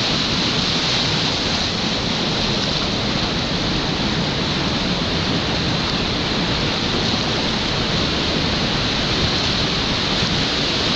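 River whitewater rapids rushing steadily close around a kayak running through them.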